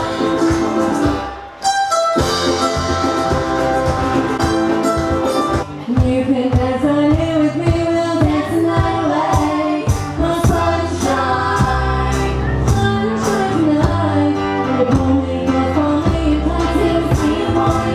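Music with singing over instruments, with a brief drop about two seconds in and a short break near six seconds.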